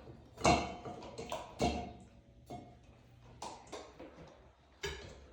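About four sharp knocks and clinks of ceiling fan hardware being handled as the fan is fitted to its ceiling bracket, the loudest about half a second in.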